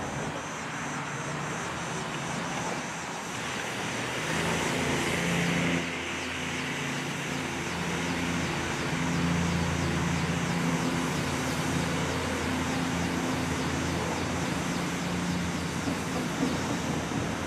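An engine runs steadily over a constant hiss. Its low hum grows stronger from about four seconds in and eases off again near the end.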